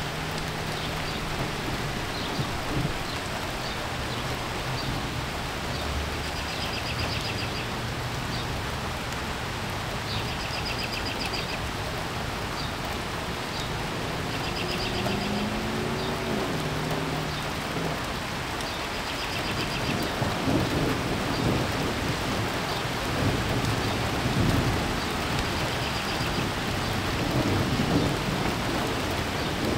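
Thunderstorm moving in: a steady hiss of rain, with irregular low rumbling that grows louder from about two-thirds of the way through.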